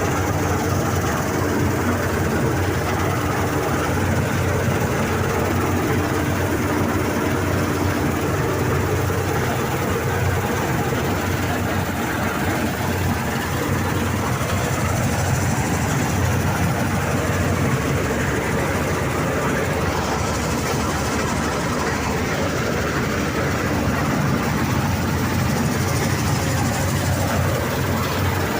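Heavy harvesting machinery running steadily at work, a constant engine drone with a low hum and a mechanical clatter and rush over it.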